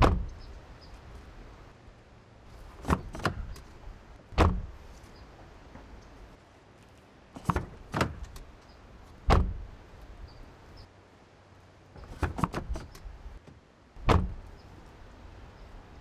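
Car door being opened and shut again and again. Each time a quick cluster of clicks as it is opened is followed by a solid slam about a second or so later, four slams in all.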